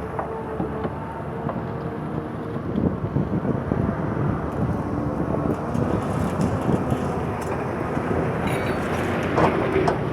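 An excavator's diesel engine running steadily, with a few brief knocks.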